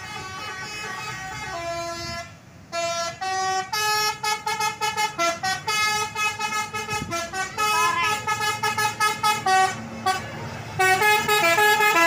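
Bus 'telolet' multi-tone horn playing a tune: quick runs of short notes jumping between pitches, pausing just before the end and then starting again, over low traffic rumble.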